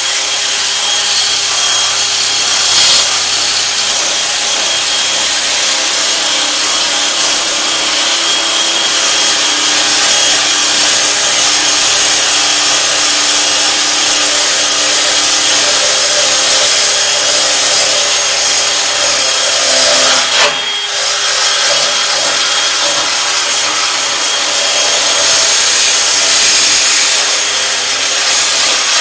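A handheld electric power tool runs steadily while it abrades the steel of a car tailgate, stripping off old sealant and surface rust. Its pitch holds steady throughout, and the sound dips briefly once about two-thirds of the way through.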